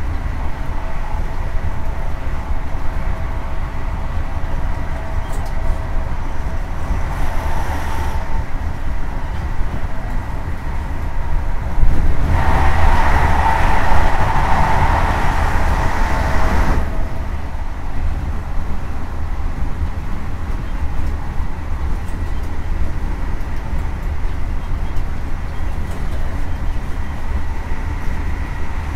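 Class 43 HST power car with its VP185 diesel engine running at line speed, with steady rumble, rail noise and wind rush. The train gets louder for about five seconds in the middle, then settles back.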